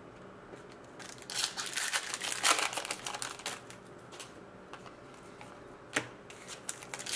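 Trading cards being handled: a run of rustling and clicking as they are shuffled in the hand, a pause, then a single sharp tap about six seconds in as they are set down on a stack.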